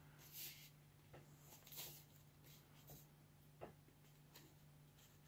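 Near silence: faint, brief rustles and light taps from a cardboard LP record jacket being handled, over a low steady hum.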